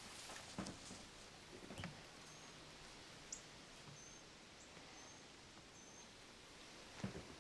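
Near silence: quiet film ambience with about six faint, short, high bird chirps and a few soft knocks, the loudest near the end.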